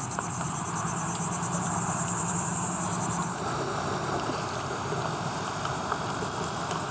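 High-pitched, finely pulsing insect buzz, like crickets or cicadas, that stops about halfway through, over a steady wash of wind and water noise.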